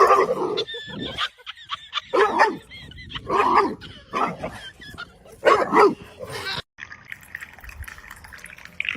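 A dog barking and yipping in short, separate bursts.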